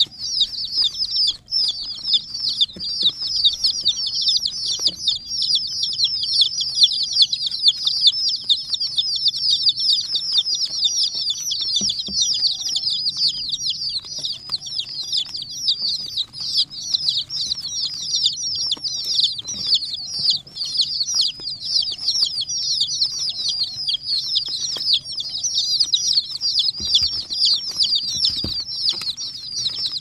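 Dozens of young chicks peeping without pause, many high-pitched calls overlapping into a dense chorus.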